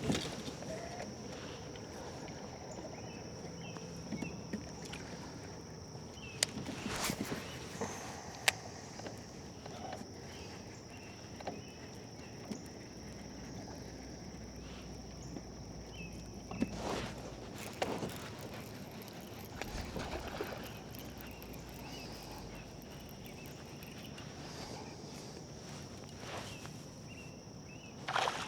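Sounds from a fishing kayak on a river: occasional sharp knocks and clicks of tackle and hull, over a steady high-pitched insect drone.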